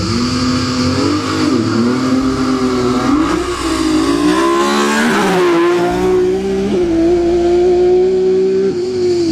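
BMW E46 race car accelerating hard from the start line, its engine climbing in pitch and dropping back at several gear changes. It passes close with a sweep down in pitch about five seconds in, then runs on at high revs as it pulls away up the hill.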